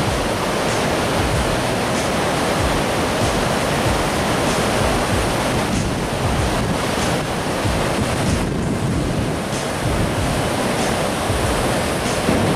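Steady rush of the American Falls and the churning river rapids below it, with wind buffeting the microphone.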